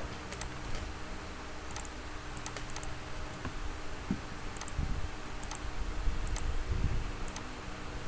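Scattered clicks of a computer mouse and keyboard, about a dozen spread irregularly, with a couple of dull low thumps about halfway through and again near the end, over a faint steady hum.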